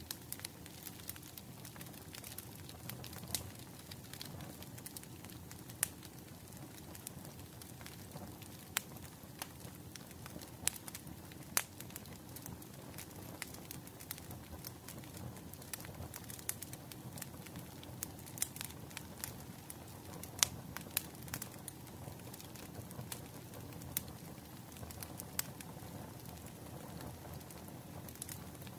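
Wood fire crackling: a steady low hiss with irregular sharp pops and snaps, a few louder than the rest.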